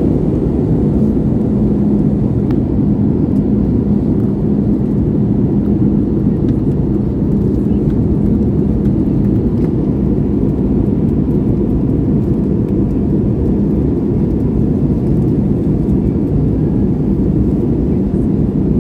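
Airbus A320 cabin noise in flight: a steady rumble of engines and airflow, with a low hum running through it.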